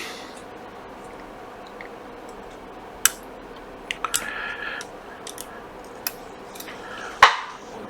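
Sparse small clicks and taps of metal tweezers and tools being handled on a workbench, with a short scrape about four seconds in and a sharper click near the end, the loudest.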